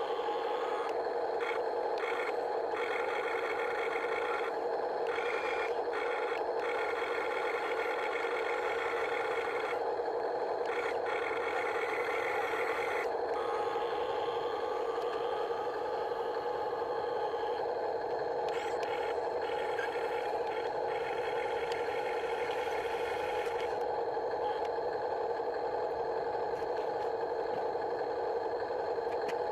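Huina 1573 RC excavator's small electric motors and gearboxes whirring steadily, with the higher gear noise dropping out briefly many times as functions start and stop.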